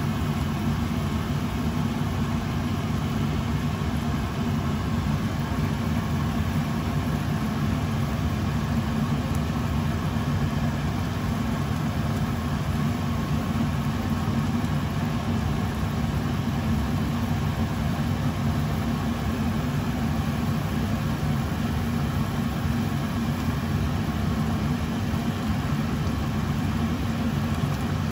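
A whole chicken simmering in sauce in a frying pan: a steady bubbling and sizzling, heaviest in the low end.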